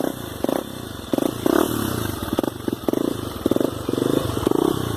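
Honda XR 250 Tornado's single-cylinder four-stroke engine running at low revs, with repeated short throttle blips that rise and fall every half second or so.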